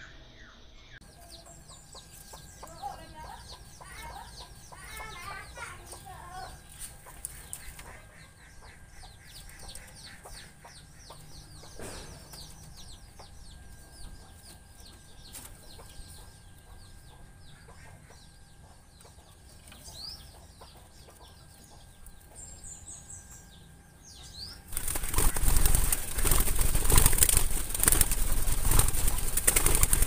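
Spotted dove flapping its wings hard inside a wire-mesh cage, starting suddenly near the end and lasting about five seconds as the loudest sound. Before that only faint chirps.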